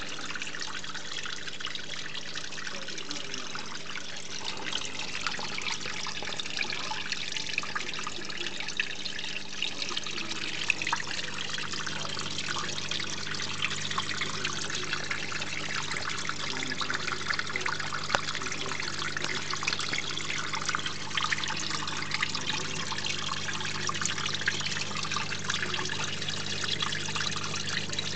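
Water trickling and splashing steadily from a terrarium's small pump-driven waterfall, over a steady low hum.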